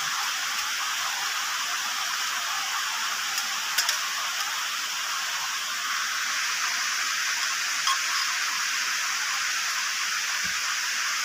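A steady, even hiss, with a few faint light clicks over it.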